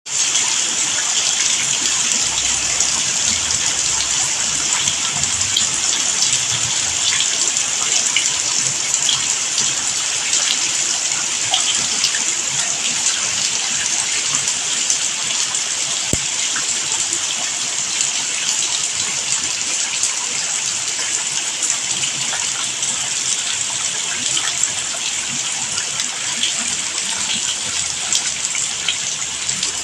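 Steady rain falling: a constant hiss with scattered small drop ticks.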